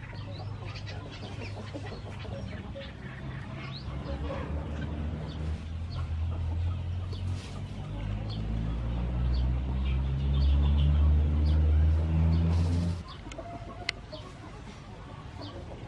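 Chickens clucking, with a low steady drone that grows louder and stops suddenly about 13 seconds in.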